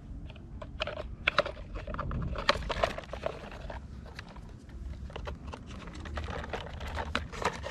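Hard plastic toy wheels and parts clicking and tapping as they are handled and pushed onto thin metal axles: an irregular run of small sharp clicks.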